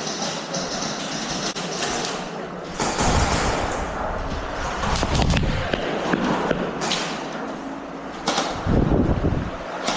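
Rustling and dull thumps of movement, with a few sharp clicks or snaps.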